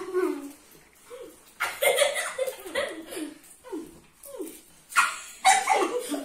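People laughing in repeated bursts, with short falling squeals between them. The loudest bursts come about two seconds in and again about five seconds in.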